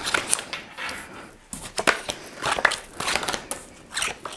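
Tarot cards being shuffled and handled: an irregular run of quick clicks.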